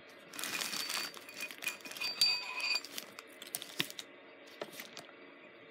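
Crinkling and rustling for a couple of seconds as a brooch and its packaging are handled, then a few light clicks and taps.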